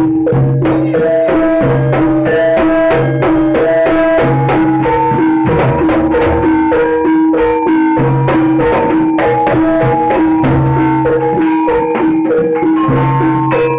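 Jaranan gamelan music: drums and struck pitched metal instruments playing a fast, steady repeating pattern, with a low gong-like note recurring every second or two.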